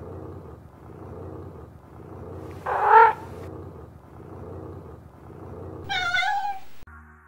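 A cat purring in a steady in-and-out rhythm, about one cycle a second, with a loud meow about three seconds in and a second, wavering meow near six seconds.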